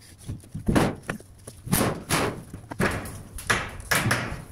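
About five irregular thumps and bangs from a large Colorbond sheet-steel valley gutter being stepped on and worked into place, the thin steel flexing and banging underfoot.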